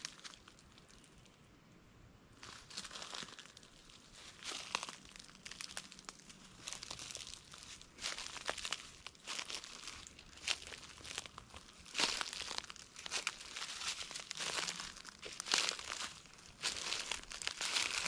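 Footsteps crunching through dry oak leaf litter, an irregular run of crisp crunches that starts about two seconds in and keeps going at walking pace.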